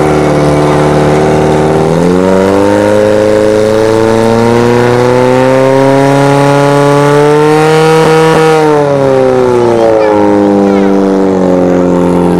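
Portable fire pump's engine running hard, its pitch climbing slowly for several seconds as it drives water through the attack hoses, then dropping away about two-thirds of the way through.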